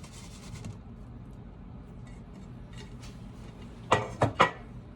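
Three quick knocks of a cake pan, tapped and lifted off an upside-down cake turned out onto a plate, about four seconds in, after a faint rustle at the start.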